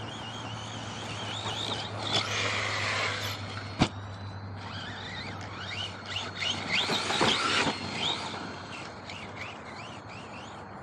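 Electric RC monster truck driving, its motor whine rising and falling in two spells of throttle. A single sharp knock comes about four seconds in, and a steady low hum runs underneath.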